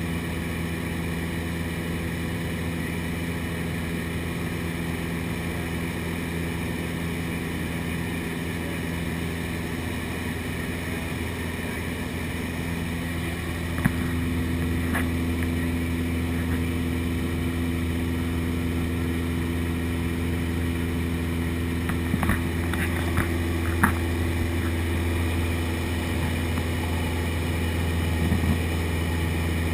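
Piston engine and propeller of a light single-engine high-wing plane in cruise, a steady drone heard inside the cabin. It gets a little louder about halfway through, and a few small clicks sound near the end.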